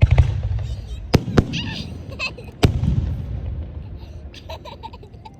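Aerial fireworks bursting: a deep boom at the start, then sharp cracks about a second in, again just after, and near three seconds in, each followed by a rumbling echo that dies away.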